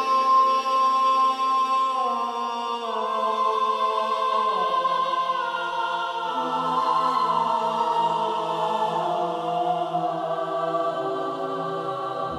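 Background music of slow, long-held chords that shift to new notes every second or two.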